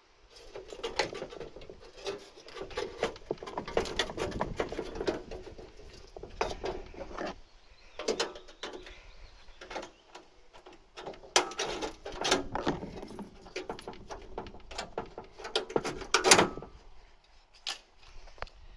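Hand work on a car door's steel panels: irregular knocks, scrapes and clatters of sheet metal, the loudest about sixteen seconds in, dying away near the end.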